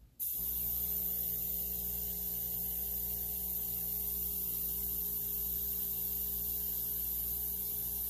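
Airbrush compressor switching on in the first half second and running with a steady electric hum, while compressed air hisses from a Master gravity-feed airbrush blowing a drop of alcohol ink out into a streak.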